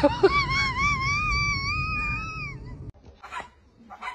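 A dog's long, high-pitched, wavering whine-like wail that cuts off about two and a half seconds in, followed by a few faint scraps of sound.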